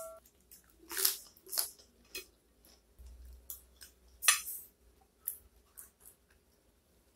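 Close-miked eating sounds: a string of short, crisp crackles and clicks from a lettuce leaf being torn and crunched and from a spoon and fork working through sauce on a plate. The loudest click comes about four seconds in.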